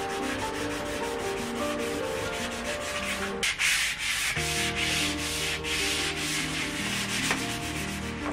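A pad rubbing back and forth in quick, even strokes along a painted bicycle mudguard, a dry rasping scrub. Background music with held notes plays underneath.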